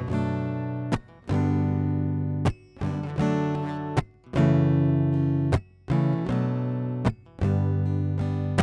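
Epiphone AJ-220S acoustic guitar strummed and picked up by its LR Baggs under-saddle pickup and preamp, recorded direct rather than through a microphone. Chords are struck about once every second or so, each ringing and fading, with short muted breaks between them.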